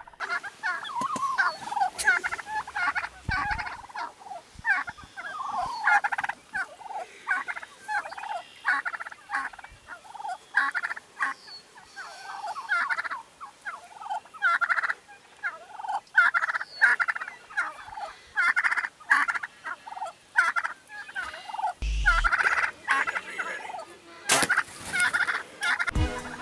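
Wild turkeys calling close by, a continuous string of short, rapid calls. A few dull thumps near the end.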